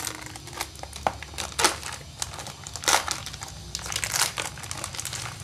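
Clear plastic shrink-wrap film crinkling and crackling as hands tear it off a cardboard product box, in irregular crackles with the loudest about a second and a half and three seconds in.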